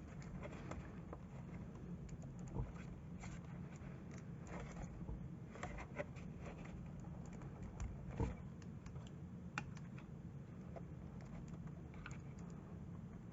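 Faint, scattered small clicks and rubbing of hands working a squeeze-fit body support into the plastic chassis brace of an RC truck, over a steady low hum.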